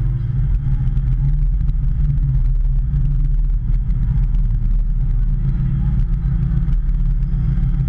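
Hitachi ZX210 hydraulic excavator's diesel engine running steadily under working load, a constant low drone, with faint clicks and knocks over it.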